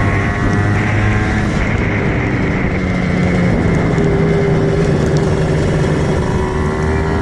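Kawasaki Ninja 150 two-stroke single-cylinder motorcycle engine running under way. Its exhaust note is uneven at first, then holds a steady pitch through the middle.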